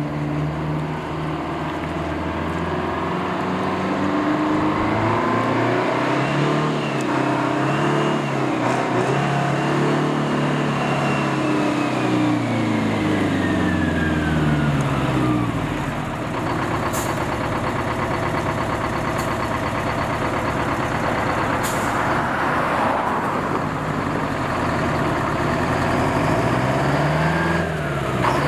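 Diesel engine of a White cab-over truck driving slowly: the revs climb over the first few seconds, hold, then ease down by about halfway and run lower. Near the end there is a short rise and fall in revs, and a few brief high hisses come in the second half.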